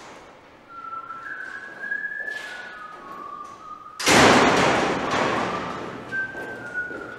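A person whistling a short stepwise tune. About four seconds in, a loud metal bang of the steel gate door echoes through the hall and fades over a couple of seconds. The whistling then goes on.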